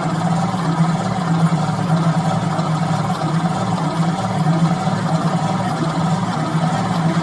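1952 Ford F3 engine cranking over steadily on its starter without firing, the engine spun to test the new mechanical fuel pump's draw from a jerry can.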